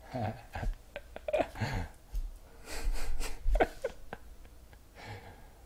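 A man's low mumbled voice and breathing, with a few soft clicks from trading cards being handled.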